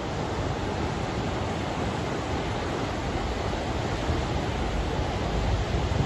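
Ocean surf breaking and washing onto a sandy beach, a steady wash of noise; a low wind rumble on the microphone starts to build near the end.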